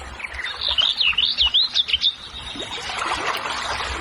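A bird singing a quick warbling phrase of rising and falling chirps, about a second and a half long, starting about half a second in, over a steady background hiss.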